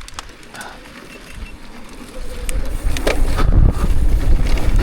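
Mountain bike setting off down a dry dirt trail: a few light clicks at first, then from about two seconds in a low rumble of tyres and wind that grows loud as the bike picks up speed.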